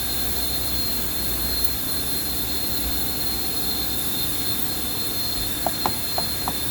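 Steady machine noise, a hiss with a constant high whine and a low rumble, and four short sharp ticks about a second before the end.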